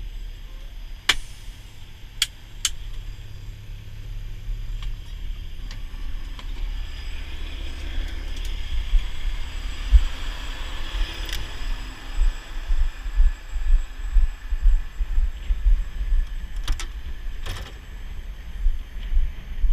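Heavy-duty wrecker's diesel engine idling with a steady low rumble, with a few sharp clicks and knocks from the cab door and handholds as someone climbs out of the cab. From about twelve seconds in, uneven low thumps join the rumble while walking beside the truck.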